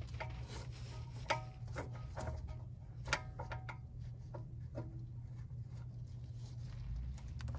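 Light clicks and small metallic taps of tools and parts being handled at a brake caliper during brake bleeding, with two louder clinks about a second and three seconds in, over a low steady hum.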